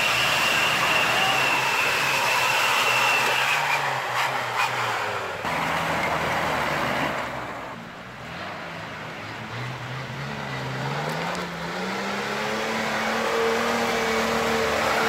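Off-road 4x4 vehicle engine running under load. It eases off and quietens midway, then revs up with a steadily rising pitch over a few seconds and holds high near the end.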